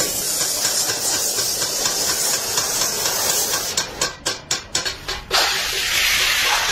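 Gas torch hissing steadily as it heats a copper pot. A run of quick sharp knocks comes about four seconds in. About five seconds in, a sudden loud sizzling hiss of steam starts as hot copper is plunged into a tub of water.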